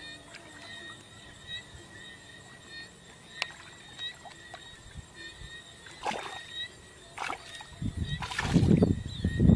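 Hands groping and sloshing through shallow muddy water, feeling in the mud for fish. There are small scattered splashes and drips at first, then heavier sloshing splashes from about eight seconds in.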